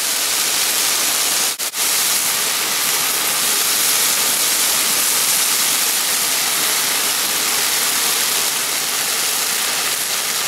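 Ground beef and chopped onions frying in a skillet over a gas camp stove, a steady hiss of sizzling that briefly cuts out twice about a second and a half in.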